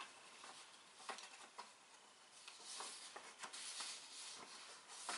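Near silence: faint room tone with a few soft, short clicks.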